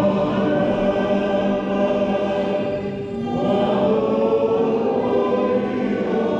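A choir of many voices singing together in harmony, holding long notes, moving into a new phrase about three seconds in.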